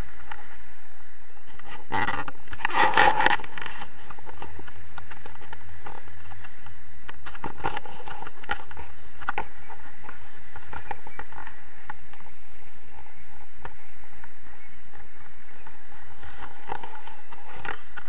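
Wind rushing over an action camera's microphone in paraglider flight, a steady noise with a louder burst about two to three seconds in.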